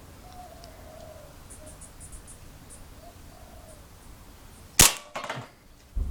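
A single sharp shot from an airsoft Hi-Capa 5.1 gas blowback pistol about five seconds in, followed at once by a short clatter and a dull knock near the end. Faint bird chirps can be heard in the first seconds.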